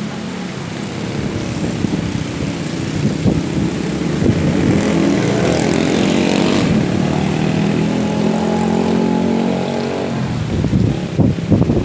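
Overhead power lines moaning in strong wind: a droning tone with overtones that swells through the middle and wavers in pitch before fading, over a haze of wind and rain.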